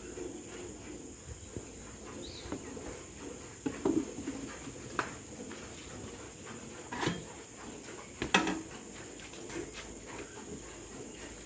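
Insects chirring in one steady high, unbroken note, with several sharp metallic knocks and clunks as an aluminium milk pot is handled beside milk cans. The loudest knock comes about eight seconds in.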